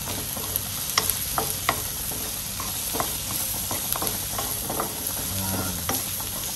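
Chicken bones, onion and freshly added black pepper sizzling as they fry in a pan, the pepper frying until its aroma comes out. A utensil stirs them, with frequent irregular clicks and scrapes against the pan over a steady sizzle.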